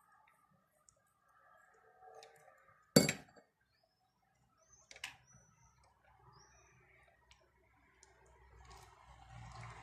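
Quiet handling of small objects: one sharp knock about three seconds in and a lighter click about two seconds later, with soft rustling and clinking between.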